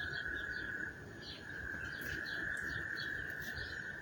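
A frog chorus calling after heavy rain: a steady, unbroken high trill, with scattered short chirps above it.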